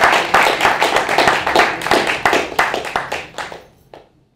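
Audience applauding, a room full of clapping hands that dies away about three and a half seconds in.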